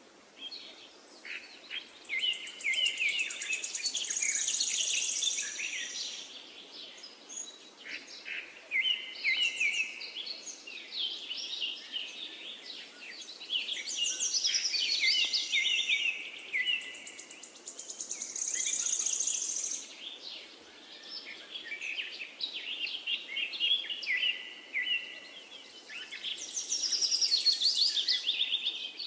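A finch singing: repeated phrases of fast trills and chirps, a new phrase every few seconds, some ending in high buzzy notes.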